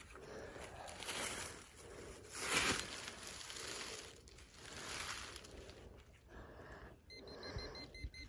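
Hand digging tool scraping into soil and dry leaf litter, with rustling as gloved hands sift the dirt to dig out a metal-detector target. Near the end, a quick run of short high beeps.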